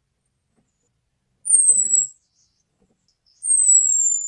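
Orange-headed thrush giving its thin, high call, a whistle that slides slightly down in pitch, twice about two seconds apart. It is the call used as a lure to draw in male orange-headed thrushes.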